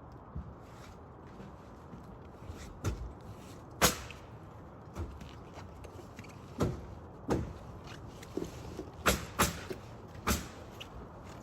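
A string of about ten irregular sharp knocks and taps, the loudest about four seconds in and several more close together near the end, over a steady low background rumble.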